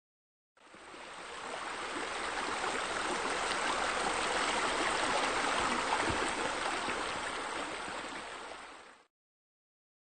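Rushing, splashing water of a waterfall as a steady hiss. It fades in from about half a second in, holds, then fades and cuts off about a second before the end.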